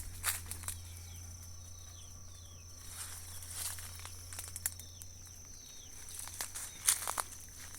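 Outdoor rural ambience: short, falling chirps of small birds over a steady high-pitched insect drone, with a few sharp clicks or knocks, the loudest near the end.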